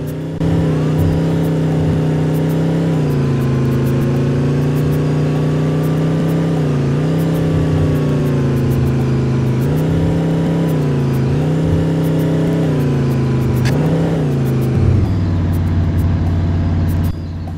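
Bus engine running under load. Its pitch dips and recovers every few seconds, then falls to a lower steady drone near the end.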